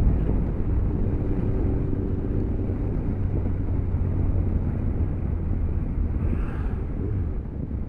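Motorcycle engine running steadily while under way, with a constant low hum and a steady rush of wind and road noise.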